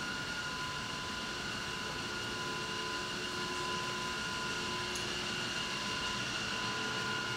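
Steady hallway room tone: an even hiss with a few faint, steady high whines running unchanged throughout.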